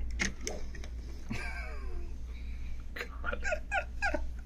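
Men laughing, with a quick run of short laughs about three seconds in. Before that come a few light clicks of the plastic robot figure being handled.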